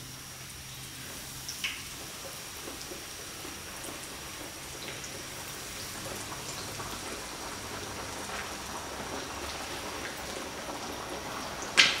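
Flour-coated chicken drumsticks deep-frying in hot oil for the first fry that sets the crust: a steady crackling sizzle that grows slowly louder. A short, sharp clack comes near the end.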